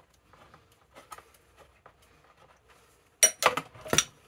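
Soft handling clicks, then about three seconds in a quick run of sharp metallic clanks with a ringing tail: a steel ratchet and socket knocking against the motorcycle's front fork clamp as it is put on the bolt.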